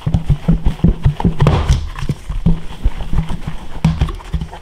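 Large raw chicken thighs thumping and knocking inside a lidded three-piece plastic breading shaker as it is shaken to coat them in seasoned flour: a quick, irregular run of dull thuds, several a second.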